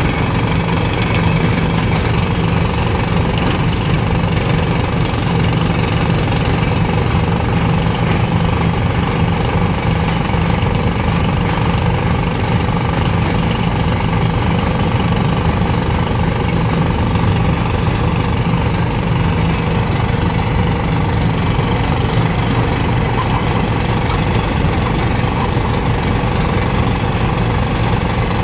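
Heavy diesel mining machinery running steadily, with a rapid, continuous knocking rhythm.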